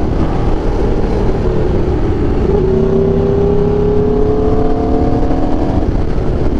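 Aprilia RSV4 1100 Factory's V4 engine through an SC Project exhaust, heard from the rider's seat while cruising. Its pitch rises slowly over the middle few seconds as it gently picks up speed, over a steady rush of wind noise.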